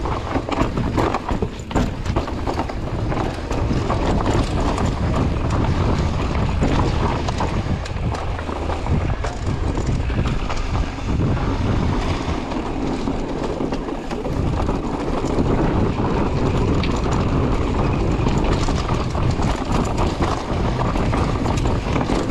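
Mountain bike descending a rough dirt trail at speed: a steady rumble of the tyres with constant rattling and knocking from the bike over roots and rocks.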